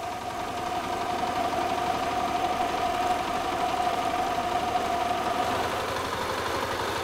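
Walk-behind power tiller's single-cylinder diesel engine running steadily with a fast chugging beat while working a flooded paddy field. It grows somewhat louder over the first two seconds.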